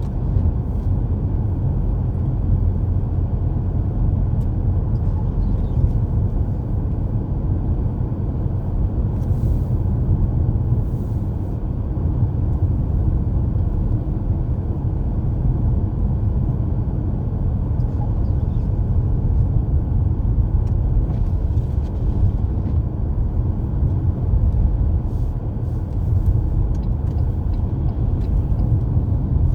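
Steady low rumble of a car being driven on a snowy road: road and engine noise with no change in pace.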